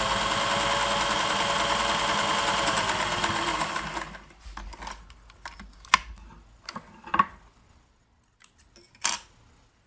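Singer 401A sewing machine running at speed, stitching a tight zigzag through four layers of fabric; it slows and stops about four seconds in. Then a few scattered sharp clicks and knocks.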